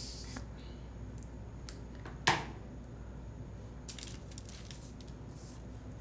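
Small handling sounds of sticker and paper on a desk: a few light paper rustles and faint clicks, with one sharp tap a little over two seconds in, over a low steady hum.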